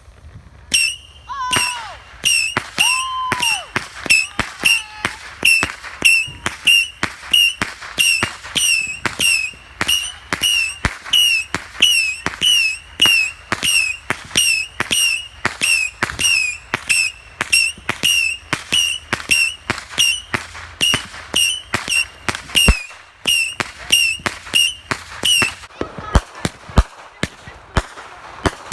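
A consumer firework, lit and left to fire, going off in a rapid string of sharp bangs, about two a second, each with a short high whistle. It stops abruptly near the end, and a few plain cracks follow.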